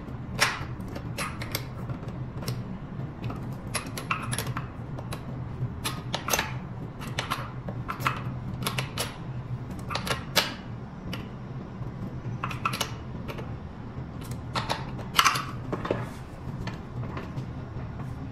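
Irregular sharp metallic clicks and taps of a hand tool working a bolt on an electric scooter's front suspension, a few louder clacks among them, over a steady low hum.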